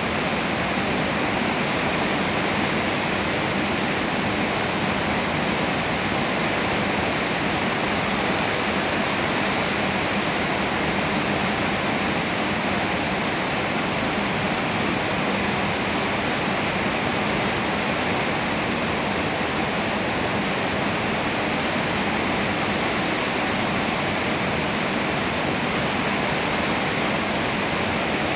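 Steady rainfall, an even hiss of rain coming down on leafy trees.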